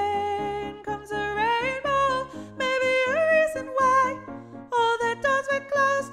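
A singing voice carries the tenor line of a choral arrangement in sustained notes with sliding pitch changes, over piano accompaniment playing steady repeated chords.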